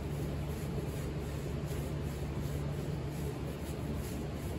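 A steady low hum, with faint, soft, irregular rubbing strokes as the old lacquer finish is worked over with lacquer thinner.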